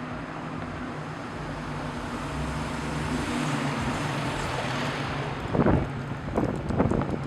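Street traffic ambience: a steady hum and noise from vehicles that swells as traffic passes. In the last couple of seconds there are several louder, irregular short knocks.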